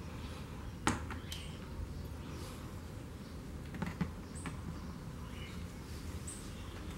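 A few light clicks and taps as a small wired motor unit is handled and set down on a plastic lid, the sharpest about a second in and two close together about four seconds in, over a steady low background rumble.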